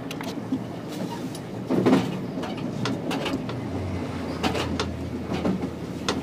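Passenger train rolling slowly over switches and rail joints: irregular clicks and clacks of the wheels over a steady rumble. A low hum comes in about halfway through.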